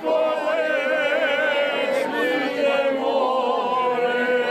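A small group of men and women singing together unaccompanied, a slow chant-like tune with long held notes.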